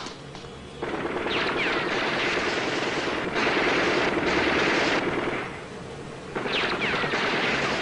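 Rapid automatic gunfire. One long spell starts about a second in, there is a short lull a little past the middle, and a second spell comes near the end.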